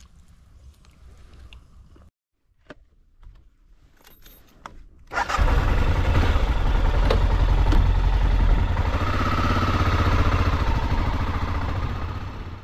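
A few small clicks and scrapes, then about five seconds in a motorcycle engine starts with a sudden loud onset and keeps running steadily with a deep rumble, tailing off near the end.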